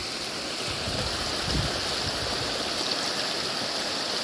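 A shallow, low-running stream flowing over rocks: a steady rush of running water.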